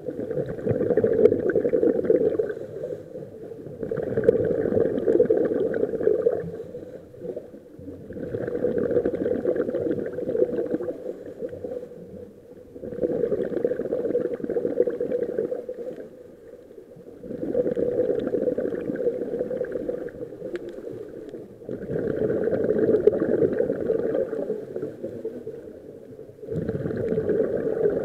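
A scuba diver breathing through a regulator underwater: rhythmic bursts of bubbling, gurgling exhaled air, about one breath every four to five seconds, seven in all.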